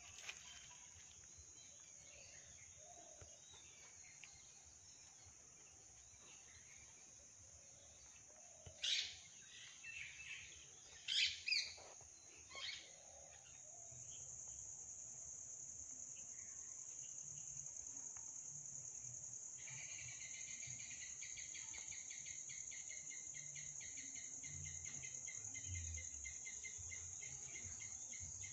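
Outdoor insect chorus: a steady high-pitched insect trill throughout, with a short run of bird calls about nine to thirteen seconds in. From about twenty seconds a cricket-like chirping sets in with a fast, even pulse.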